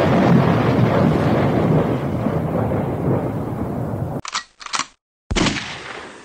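A loud rumbling noise that slowly fades and cuts off about four seconds in. Then two quick sharp bangs, and a louder third bang that dies away over about a second.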